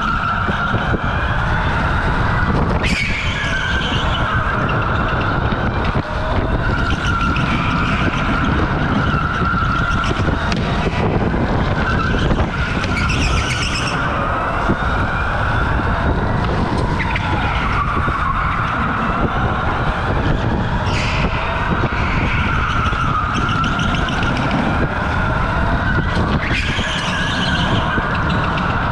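OTL Storm electric go-kart heard from on board: the motor's whine rises and falls with speed over a steady rumble of tyres on the concrete floor. Short tyre squeals come through the corners, four times.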